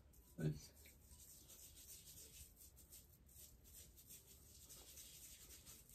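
Faint rubbing of fingers through a thick month-old beard, in short irregular strokes, with a brief low sound falling in pitch about half a second in.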